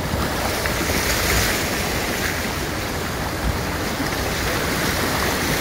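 Shallow, rocky river rushing over stones in small white-water rapids: a loud, even rush of water.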